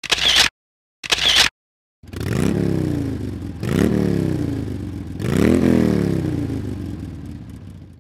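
Two short noisy bursts a second apart, then an engine revved three times, each rev rising quickly in pitch and falling away slowly, the last one fading out.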